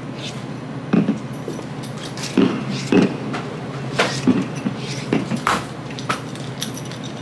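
Hard objects being handled and set down: a series of short knocks and clinks, about eight, spread irregularly.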